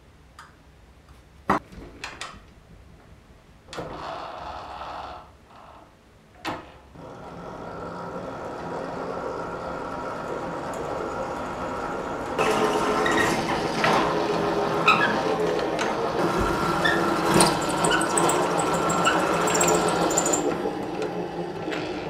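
A few sharp knocks and clicks of metal tubing being handled, then an electric drill in a bench drill stand starts running about seven seconds in. From about twelve seconds the bit cuts through the chrome steel tube joint, a louder, rougher whir that eases off near the end.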